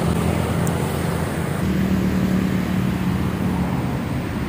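Steady low rumble of motor traffic with a constant low hum.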